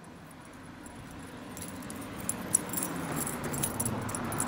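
Light metallic jingling, a quick scatter of small ticks that grows louder over the last couple of seconds, over a rising rustle: the clips and buckles of a dog's harness and leash jingling as the dog trots close by.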